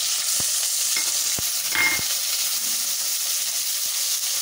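Raw chicken pieces sizzling loudly and steadily in hot oil in a wok, just added. A spatula stirs them, knocking and scraping against the pan a few times in the first two seconds.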